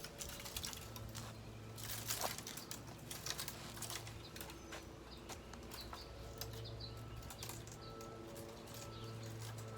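Dead tree branches rustling and cracking as they are worked loose and cut, with many scattered snaps and clicks over a faint steady hum.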